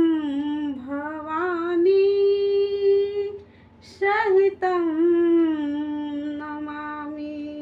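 A woman singing a devotional chant unaccompanied, drawing out the vowels in wavering, ornamented phrases. She holds one long note, breaks off briefly about three and a half seconds in, then sings another ornamented phrase and settles into a long held note that fades near the end.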